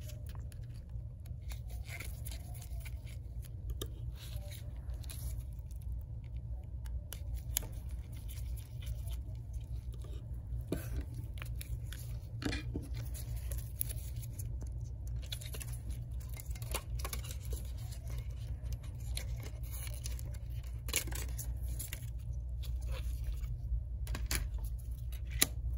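Scattered faint clicks and scrapes of a precision screwdriver working the tiny screws of an iPhone 8 Plus screen's metal back plate, and of the thin plate being handled, over a steady low hum.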